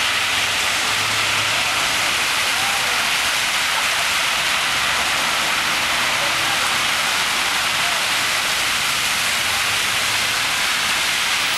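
Steady hiss of heavy rain on flooded pavement, with cars driving slowly through the standing water.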